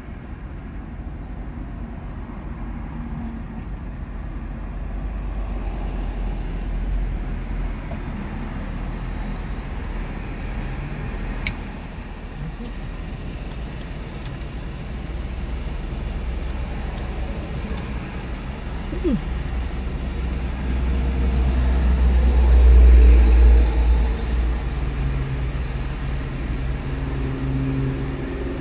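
Low rumble of road traffic heard from inside a stopped car, swelling to its loudest as a vehicle passes about two-thirds of the way through, then easing off.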